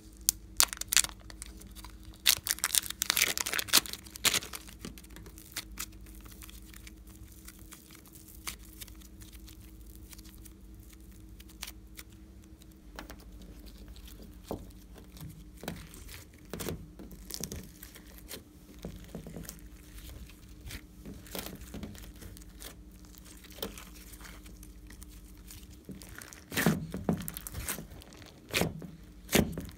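Plastic slime pouch crinkling and tearing open in a burst about two to four seconds in, then quieter handling of the slime. Near the end, glossy slime squishing as hands press it in a glass tray. A faint steady hum runs underneath.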